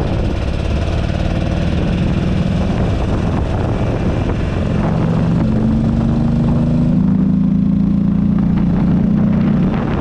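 Buell Ulysses XB12XT's 1203 cc air-cooled V-twin running steadily while riding, its pitch stepping up about halfway through and then holding, with wind noise on the handlebar-mounted microphone.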